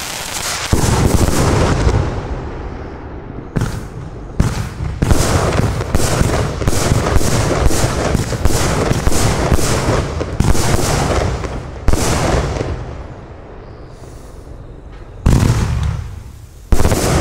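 A 131-shot compound firework cake with 25/30 mm tubes firing shot after shot at close range: launch thumps and bursting shells in quick succession, densest through the middle at about three or four a second. It thins out to a quieter stretch, then two sharp bangs come near the end.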